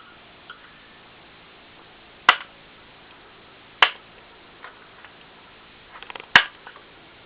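Three sharp clicks, a second or two apart, with a few fainter ticks and a quick run of small clicks just before the last: small hard parts and tools being handled while a hard disk drive is taken apart.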